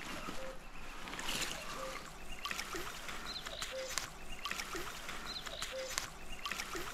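River water sloshing and trickling, with frequent small splashes. A short low call repeats about once a second behind it.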